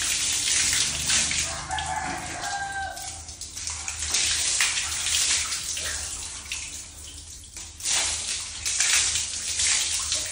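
Shower spray hissing as it pours over a wet dog and splashes onto a tiled floor, swelling and fading as the stream shifts.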